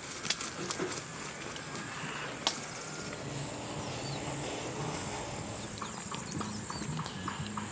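Scattered light clicks and knocks, several close together at the start, one sharper knock a little past two seconds, and a few small ones near the end, with faint short chirps.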